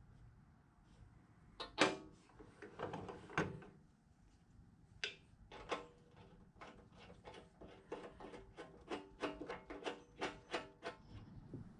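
Metal belt guard cover on a benchtop drill press being swung shut with a couple of sharp knocks, then a run of quick, even clicks, two to three a second, as the homemade knurled knob on its threaded-rod hold-down latch is worked to secure the cover.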